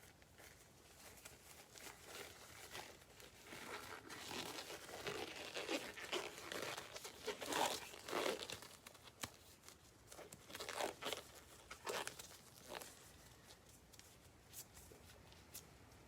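Plastic packaging crinkling and tearing in irregular handling bursts, as a box of Bowman trading cards is unwrapped; the crackling is densest and loudest through the middle, with a few sharp crackles later and only light ticks near the end.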